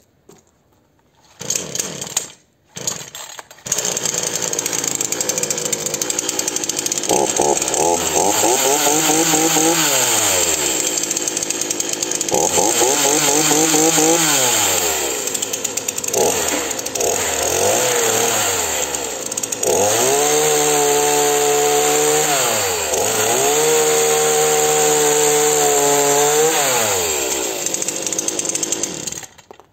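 A two-stroke petrol chainsaw catches after a couple of short false starts, about four seconds in, then idles. It is revved up and down several times, held at high revs twice for a few seconds each, then drops back and is shut off near the end.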